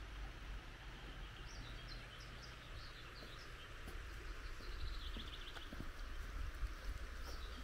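Small songbirds calling in short high chirps, with a quick trill about five seconds in, over a steady hiss of river water and a low rumble.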